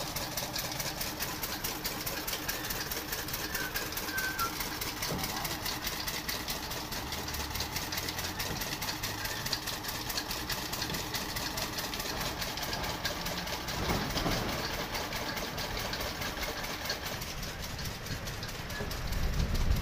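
An engine running steadily with a rapid, even clatter; a low rumble swells briefly about 14 seconds in and again near the end.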